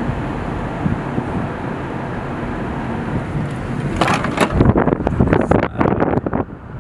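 Steady road and engine noise inside a moving car. About four seconds in it gives way to irregular gusts of wind buffeting the microphone.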